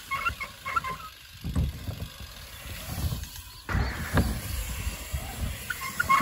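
BMX bike riding on a wooden ramp: tyres rolling on the boards, with a few dull thumps, the heaviest about four seconds in.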